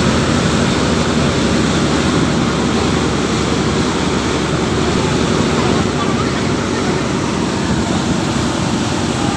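Steady rush of churning water along the hull of a river passenger launch under way at speed, over the low drone of its engine.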